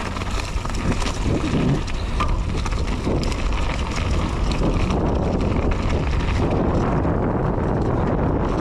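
Wind rushing over the microphone and a downhill mountain bike rattling and clattering over a rough dirt trail, growing louder over the first few seconds and then holding steady.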